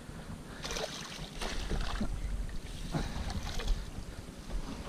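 Wind rumbling on the microphone, with a handful of short knocks and clatters from gear being handled on a boat as a landing net is put over the side.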